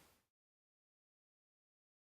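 Near silence: faint room tone that cuts off to complete silence a fraction of a second in.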